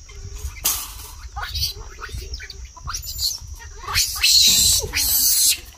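Baby vervet monkeys calling: short squeals that slide up and down in pitch, then loud, harsh screams from about four seconds in.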